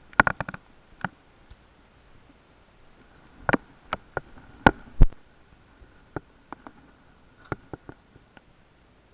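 Camera handling noise: irregular knocks and clicks as the camera is shifted and set down on the railing, a quick cluster at the start, then scattered taps through the rest.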